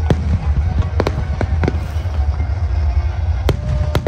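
Aerial fireworks going off: an irregular string of sharp bangs and crackles over a continuous low rumble.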